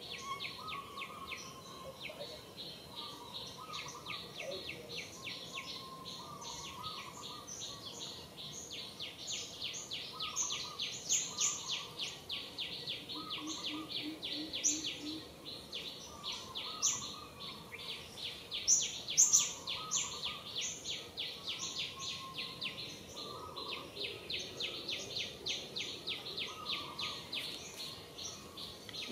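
Outdoor natural ambience: a rapid, even pulsing insect chorus runs throughout, with birds calling and chirping over it, the sharpest chirps in the middle.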